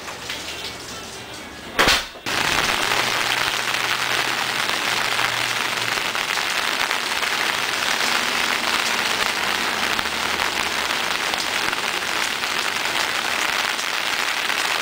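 Steady rain falling on wet pavement and grass, an even hiss. About two seconds in there is a brief loud burst where the recording cuts, and the rain follows.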